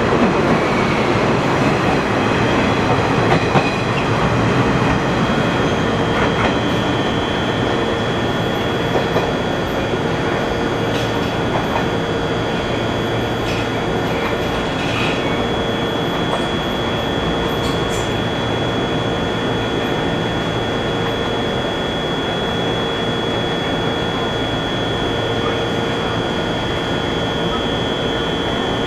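JNR-type 115 series electric multiple unit pulling out, its motors and wheels running over the rail joints, loudest in the first few seconds. From about eight seconds in, a steady high whine and a low steady hum carry on, with a few faint clicks.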